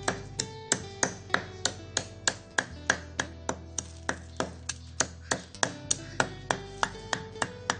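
Steel cleaver chopping a whole bone-in quail on a wooden chopping board, in sharp, even strikes about three a second. Background guitar music plays under the chopping.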